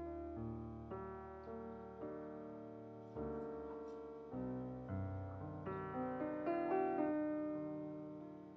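Slow, gentle background piano music: single notes and soft chords, each left to ring and fade before the next.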